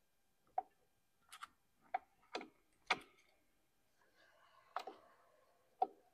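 Light, uneven clicks and taps of a motorcycle alternator stator being worked over its rotor and onto the mounting studs, about seven in all.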